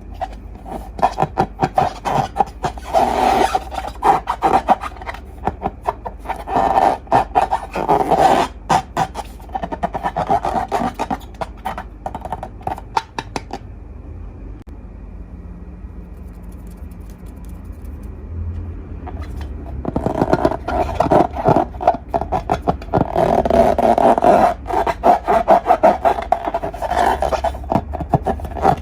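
Slime being squeezed and kneaded by hand, a run of wet, sticky clicks and crackles that eases off for a few seconds mid-way and then picks up again.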